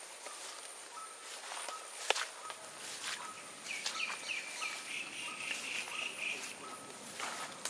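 Wet plantation ambience after rain. A steady high insect drone runs under scattered soft knocks, the sharpest about two seconds in. In the middle a bird calls: a run of short falling notes, then a held trill.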